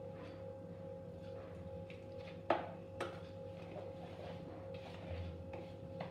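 Spoon stirring flour and milk into a batter in a plastic bowl, with two sharp metal clinks from a steel cup and its spoon about halfway through, over a steady background hum.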